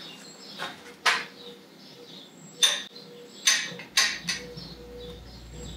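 Several sharp metallic clinks of hand tools and valvetrain parts on the Ford 302 V8's cylinder heads and roller rockers, each ringing briefly, while the rockers are adjusted.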